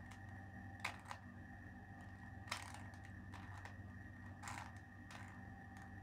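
Plastic 2x2 Rubik's cube faces being turned by hand in the R U R' U R U2 R' sequence: faint scattered clicks of the turns, over a faint steady hum.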